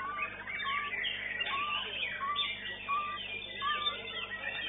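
White-rumped shama (murai batu) singing in competition: a short clear whistled note repeated about twice a second, mixed with quicker chirps and sweeping phrases.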